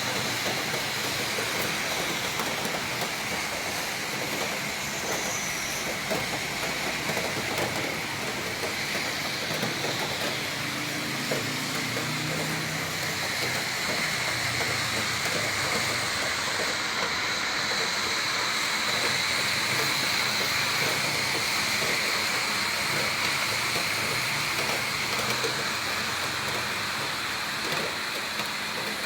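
Heavy rain falling steadily in strong wind, a dense even hiss full of small drop ticks.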